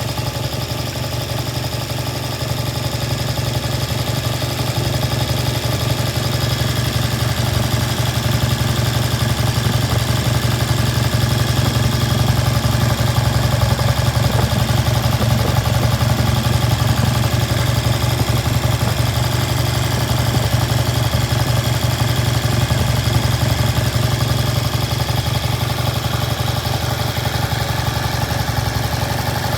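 1970 Triumph T100's 500 cc parallel-twin engine running steadily at idle.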